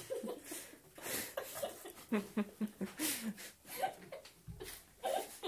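A small child murmuring and chuckling quietly, with short rustles of sweets and wrappers as he rummages through a felt stocking.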